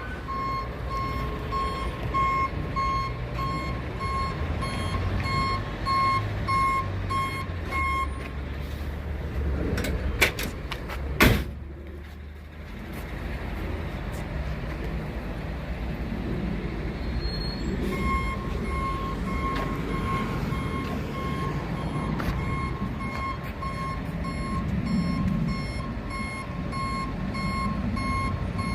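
Truck backing up: its reversing alarm beeps about twice a second over a steady low engine rumble. The beeping pauses for about ten seconds in the middle, where there are two sharp knocks.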